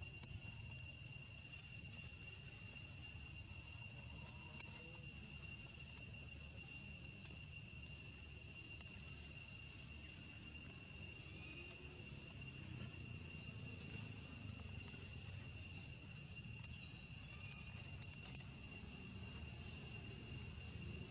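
Steady, high-pitched insect chorus droning without a break, two even tones over a low background hum.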